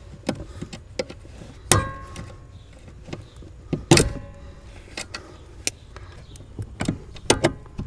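Needle-nose pliers working the small metal retaining clip where the clutch master cylinder's pushrod joins the clutch pedal: a string of light metallic clicks and taps, with two sharper clicks, about two seconds in and again at four seconds, that ring briefly.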